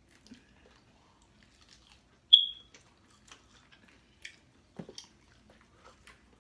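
Close-mouthed chewing and crunching of Hot Cheetos-coated chicken, with small scattered clicks and smacks. About two seconds in, a single short, high-pitched beep, the loudest sound, rings out and fades quickly.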